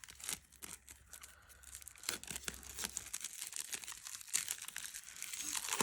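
Plastic shrink-wrap on a tarot deck being cut and peeled off by hand, crinkling and tearing in irregular crackles.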